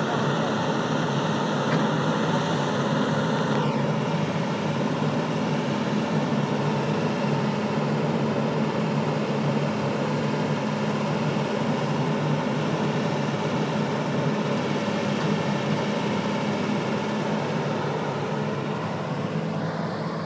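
Hitachi EX200LC-5 excavator's six-cylinder diesel engine running steadily while its hydraulic boom, arm and bucket are worked.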